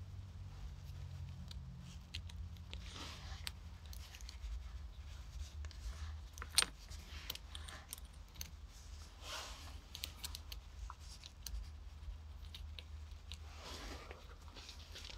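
Small parts being handled and fitted by hand: scattered light clicks and rustling, with one sharper click about six and a half seconds in, over a low steady hum.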